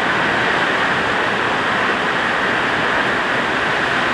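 Heavy rain falling, a steady loud rush of water that stays even throughout.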